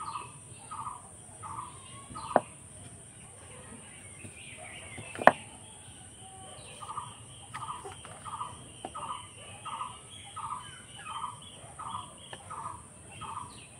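A bird, most likely a domestic fowl, calling in a steady run of short, evenly spaced calls, a little under two a second; the calls stop for about four seconds near the start and then go on again. A single sharp knock about five seconds in is the loudest sound, with a few fainter clicks around it.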